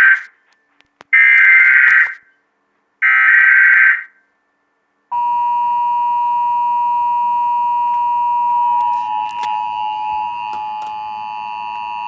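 Emergency Alert System SAME header data bursts opening a Required Monthly Test: the end of one raspy digital burst, then two more, each about a second long and a second apart. About five seconds in, the steady two-tone EAS attention signal starts and holds.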